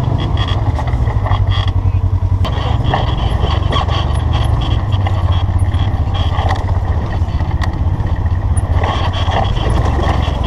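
UTV engine running steadily at low speed while crawling over rock, with scattered clicks and knocks over the engine sound.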